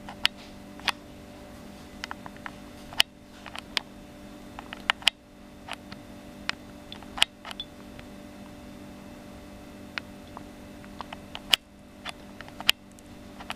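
Handling noise from a handheld camera: irregular sharp clicks and ticks, about one or two a second, over a steady low hum.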